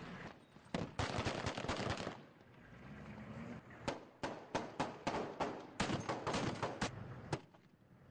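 Automatic gunfire: a dense burst of rapid shots lasting about a second, starting just under a second in, then from about four seconds in a run of separate shots a few a second, stopping shortly before the end.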